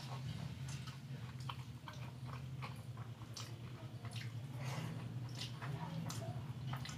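Person chewing a mouthful of a Bengali rice-and-dal meal, with many small irregular mouth clicks and smacks over a steady low hum.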